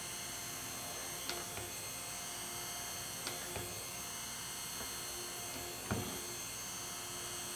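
Stick blender running steadily in a pitcher of cold process soap batter, mixing the oils with lye water to bring the soap toward trace. A few faint knocks come through the steady motor hum.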